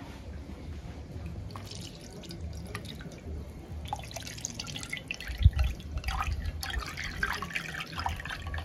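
Liquid gelatin being poured from a glass bowl into a glass baking dish: a stream of splashing and dripping that gets busier in the second half. There is one dull knock about halfway through.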